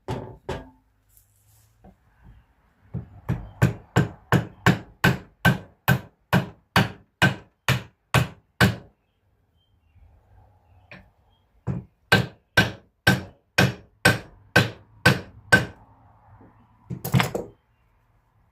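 A hammer striking repeatedly at a steady pace of about two blows a second, in two long runs of blows. A final loud cluster of hits comes near the end.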